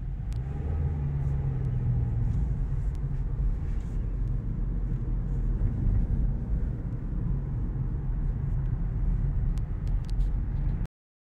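Cabin noise inside a moving 2020 Hyundai Elantra: a steady low rumble of engine and tyres on the road. It cuts off suddenly shortly before the end.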